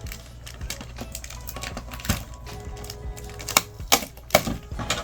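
Irregular clicking and crinkling of plastic packaging and small plastic figure parts being handled and unwrapped, with several sharper clicks in the second half, over quiet background music.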